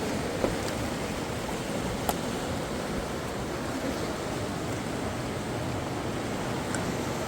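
River water rushing steadily, with two brief clicks, about half a second and about two seconds in.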